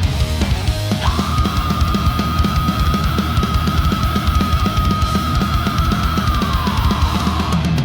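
Heavy metal music: fast, dense drumming with distorted guitars, and a single high note held for about six seconds that slides down in pitch near the end.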